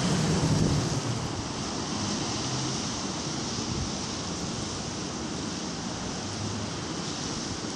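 Steady rush of a rough sea breaking against the pier, mixed with wind rumbling on the microphone.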